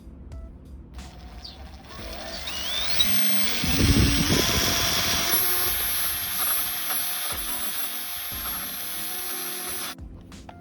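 Power drill with a 35 mm Forstner bit speeding up with a rising whine about two seconds in, then boring a hinge-cup hole into MDF and running steadily until it stops suddenly near the end.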